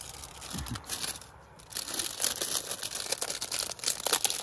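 Plastic food bag crinkling and rustling as it is handled, starting about two seconds in with irregular sharp crackles.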